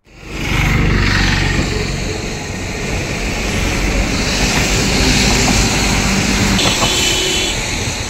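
Heavy floodwater rushing through barrage spillway gates: a loud, steady rush with a deep rumble underneath, starting abruptly.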